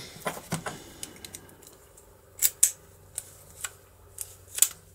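Irregular sharp metal clicks from a key being put into and turned in a reassembled DOM IX lock cylinder with a gear-ring cam, as the cylinder is tested for whether it locks.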